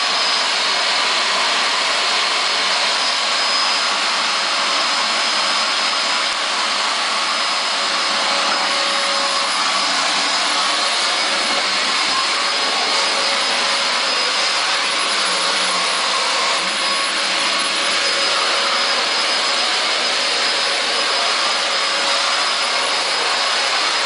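Household vacuum cleaner running steadily, a constant rush of air with a faint steady whine from its motor.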